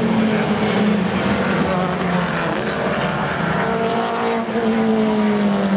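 Several British Touring Car Championship touring cars running hard past on the straight, their engine notes overlapping and dropping in pitch as they go by, most clearly about four to five seconds in.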